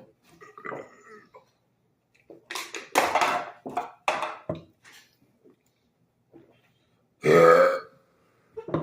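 Young men burping after chugging carbonated soda: a run of short, rough burps about three seconds in, then one long, loud burp near the end.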